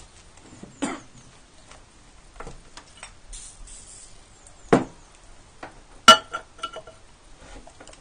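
Handling on a ceramic toilet-tank lid: scattered knocks and clicks, with a short hiss of an aerosol can sprayed onto the drill hole a little after three seconds in. The loudest sound is a sharp clink with a brief ring about six seconds in, hard objects tapping the ceramic.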